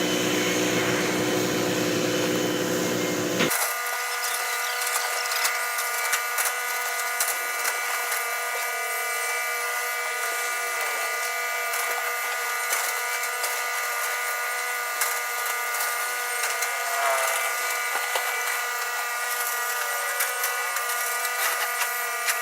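Construction machinery running: a steady mechanical whine made of several held tones, with scattered knocks and clicks. About three and a half seconds in the sound changes abruptly to a thinner whine with no low rumble.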